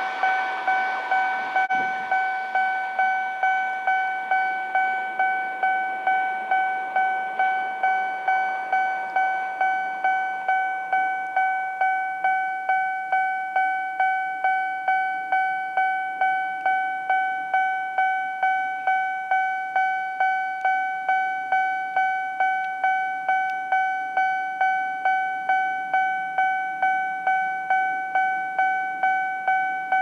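Japanese railway level-crossing warning bell ringing over and over at a steady pace of a little under two strikes a second, each strike the same ringing electronic tone. The crossing is still closed, with the barriers down. The noise of a passing train fades out in the first couple of seconds.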